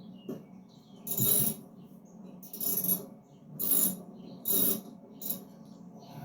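Socket ratchet clicking in about five short strokes, roughly one a second, as the already-loosened mower blade bolt is run out.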